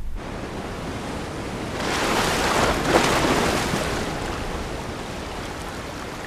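A rushing noise with no tune or voice, swelling about two seconds in and then slowly fading.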